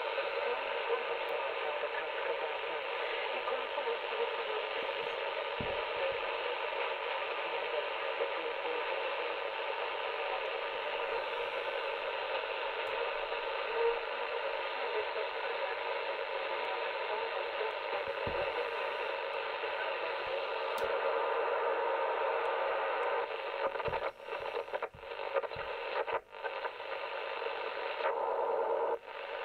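Icom IC-718 HF transceiver receiving in AM through its speaker: a steady hiss of band noise, which the owner finds a noisy receiver. In the last few seconds the radio is tuned across the band, and the noise drops out and returns in short irregular breaks.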